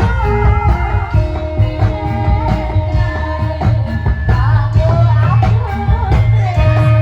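Live Javanese jaranan/barongan music: a voice sings with a wavering pitch over heavy, steady drumming and held melodic notes.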